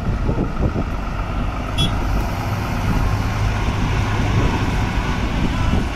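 Volvo FH 400 truck's six-cylinder diesel engine running as the tractor-trailer rolls slowly past at close range, a steady low rumble. A brief high squeak sounds about two seconds in.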